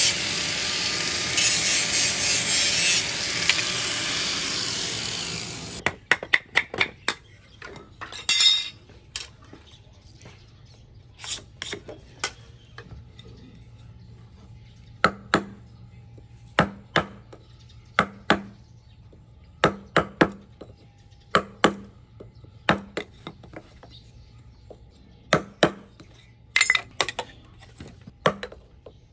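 Handheld angle grinder cutting through bamboo for about six seconds, then cutting off suddenly. After that come sharp woody knocks, often in pairs every one to two seconds, as the bamboo is worked with a hand tool on a wooden block.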